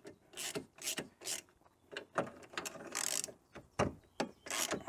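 Hand socket ratchet clicking in short back-and-forth strokes, two to three a second, as a bolt holding a bracket on the front crossmember is wound in.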